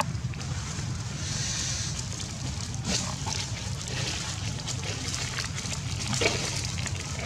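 Dry fallen leaves crackling and rustling under a walking macaque's feet, over a steady low rumble.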